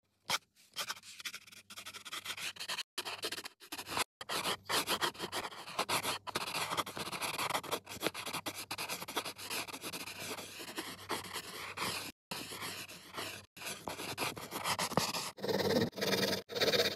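Graphite pencil scratching and hatching on drawing paper, sped up into a fast run of scratchy strokes, broken by a few abrupt cuts. Near the end the sound turns lower and louder.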